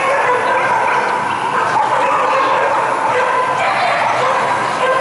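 Dogs barking and yelping without a break, a steady mix of overlapping dog voices filling a large indoor hall.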